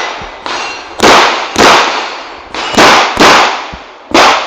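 Springfield Armory EMP compact 1911 pistol firing five shots, mostly in quick pairs about half a second apart, each crack trailing off briefly.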